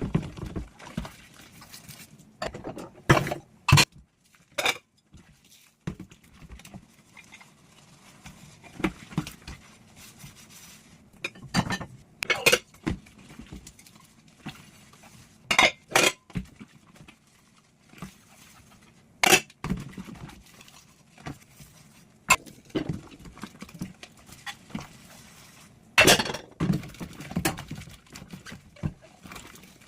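Dishes being washed by hand: crockery and cutlery clinking and knocking together at irregular intervals.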